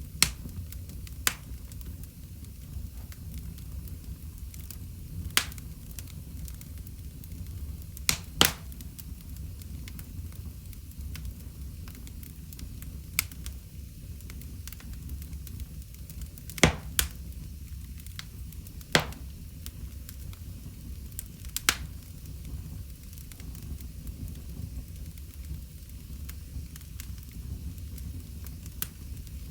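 Wood fire crackling in a fireplace: about ten sharp pops at irregular intervals over a steady low rumble of the flames.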